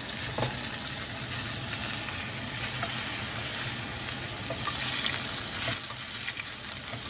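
Ribeye steak and melted butter sizzling steadily in a cast-iron skillet as the butter is spooned over the steak, with a couple of light clicks.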